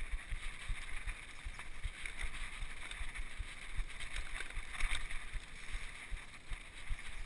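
Mountain bike riding over a dirt singletrack, heard from a camera on the bike or rider: irregular knocks and rattles from the bike over bumps, with wind rumbling on the microphone. A sharper knock comes about five seconds in.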